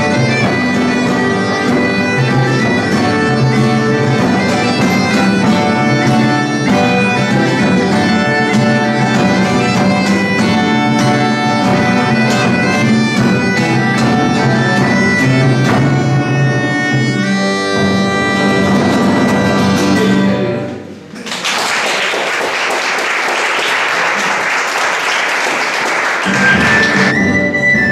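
Small folk band of acoustic guitar, drum and a wind instrument playing a lively tune over a steady beat, which ends about twenty seconds in. Applause follows for about five seconds, then a high wind-instrument melody begins near the end.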